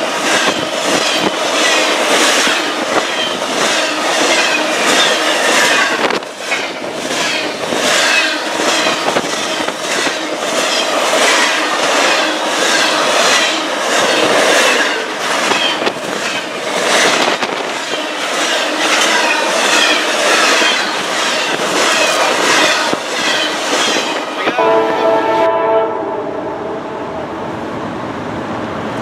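Intermodal freight train of container and trailer cars rolling past at close range, its wheels clacking over the rail joints in a steady repeating rhythm with a rushing undertone. Near the end a train horn sounds briefly, then the sound drops to a quieter steady rush.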